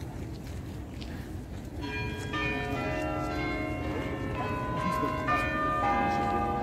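Church tower bells chiming a tune: starting about two seconds in, bell notes enter one after another and ring on, overlapping each other.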